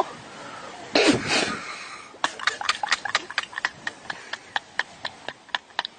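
A short breathy burst about a second in, then a rapid run of light, sharp clicks, about five a second and unevenly spaced.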